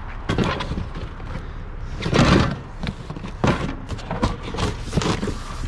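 A series of about five knocks and clattering thumps, over a low steady rumble.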